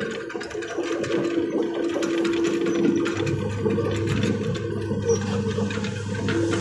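Hydraulic excavator's diesel engine and hydraulics running under work, with a steady whine and a deeper hum that comes in about halfway through, plus scattered light knocks.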